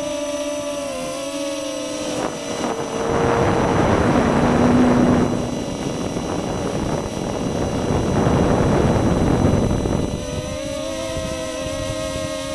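Walkera QR Ladybird micro quadcopter's motors and propellers whining steadily. From about two and a half seconds to ten seconds in, a louder rushing noise drowns the whine, then the whine returns.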